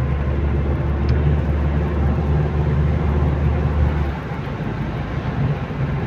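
A car driving on a wet road in rain, heard inside the cabin: a steady low drone of engine and tyres under a hiss of rain and spray. The low drone drops away about four seconds in.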